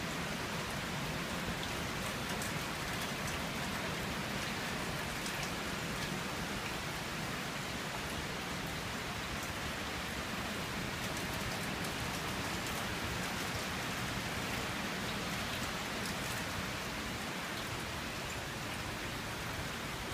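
Steady downpour of rain falling on roofs, pavement and trees, with scattered sharp drop hits through it.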